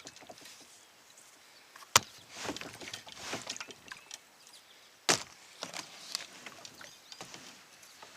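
Two sharp, hard knocks about three seconds apart, with shorter swishes and splashes between them: a kayak paddle and hull being handled on the water.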